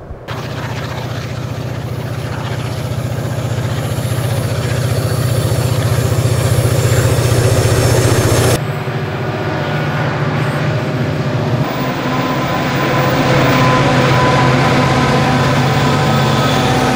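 Diesel-electric freight locomotives working under load, a steady deep engine drone that grows louder as the train approaches. The sound changes abruptly about eight and a half seconds in and again about three seconds later, where different passing trains are cut together.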